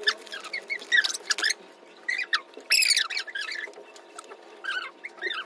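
Short, high-pitched, squeaky voice sounds, several in quick succession with quieter gaps between them.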